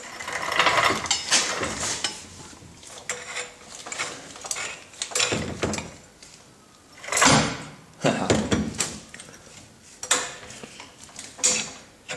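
Hydraulic trolley jack being pumped by its long handle to lift a car: a string of irregular metallic clunks and rattles from the pump strokes and the jack's moving parts.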